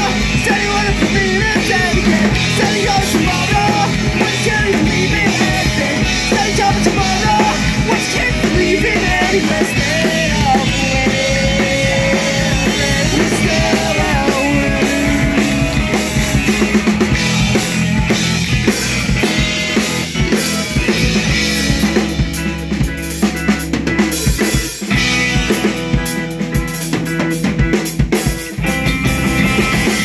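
Live rock band playing loudly: two electric guitars, an electric bass and a drum kit. About two-thirds of the way through, the playing turns choppier, with hard, separated drum hits.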